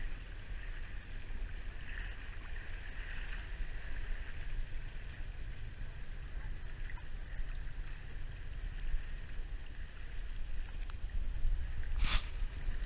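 Inflatable tender boat under way across calm water: a steady rumble of motor and water with a hiss along the hull. A brief splash comes near the end.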